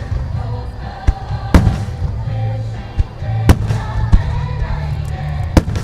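Starmine fireworks going off: several sharp booms and cracks of bursting shells a second or so apart, over music played through loudspeakers.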